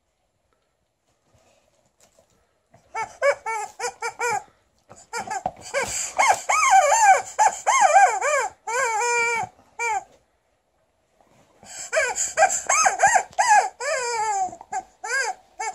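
Rubber chicken squeaker toy squealing over and over as a dog chews and squeezes it. The squeals are short, each rising and falling in pitch, and come in bursts after about three seconds of quiet, with a pause of about a second and a half past the middle.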